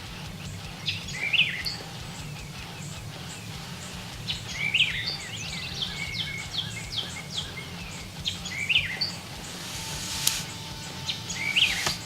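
Several songbirds singing: one bird repeats a short song phrase about every three to four seconds among many quick chirps from others, over a steady low hum.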